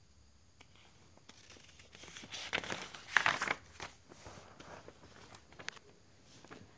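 Textbook page being turned by hand: paper rustling and crinkling, loudest from about two to three and a half seconds in, followed by a few light clicks of handling.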